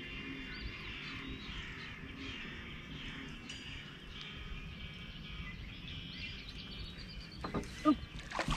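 Small birds chirping faintly now and then over a steady low background noise, with a couple of knocks near the end.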